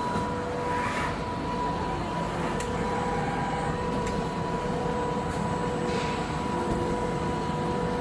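Steady machine noise with a constant hum and a few light clicks: a Richpeace automatic four-side sewing machine running in production.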